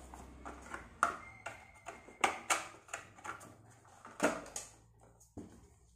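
Hands handling a smartphone box's cardboard accessory tray: irregular taps, knocks and scrapes of paperboard, with several sharper knocks about a second and two seconds in.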